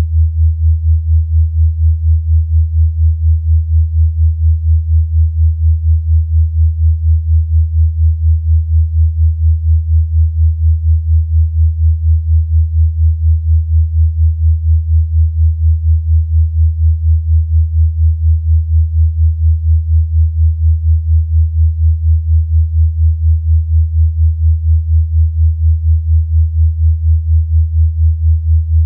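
Synthesized low sine tone, a 'healing frequency' track, held steady and pulsing evenly and rapidly in loudness, with nothing else around it.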